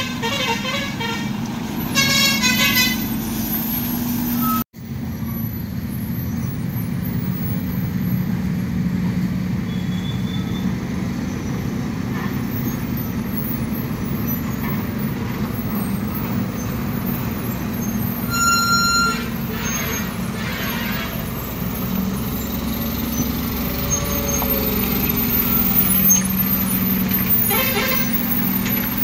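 Diesel engine of a heavily loaded lorry running steadily under load in low gear on a steep climb. Its horn sounds in short toots in the first few seconds and again about two thirds of the way in and near the end. The sound cuts out for an instant about five seconds in.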